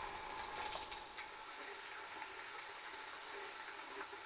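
Ginger-garlic paste and whole spices sizzling in hot oil, with a few sharp crackles in the first second, then a steady hiss.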